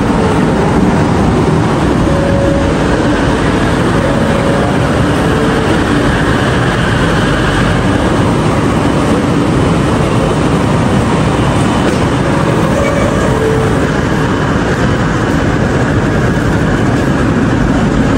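Steady, loud rumble and hum of a metro train standing at a station platform, heard from the platform and then from inside the carriage.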